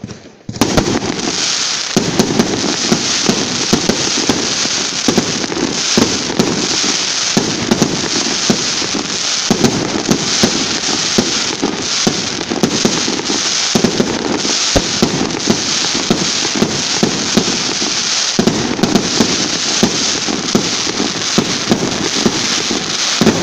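Aerial fireworks bursting overhead into crackling stars. A dense, unbroken crackle of rapid sharp pops with underlying thuds breaks in suddenly about half a second in and carries on without a pause.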